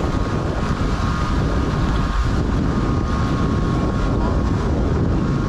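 Wind buffeting the microphone over a boat's engine idling in neutral and water washing along the hull, a steady noise throughout.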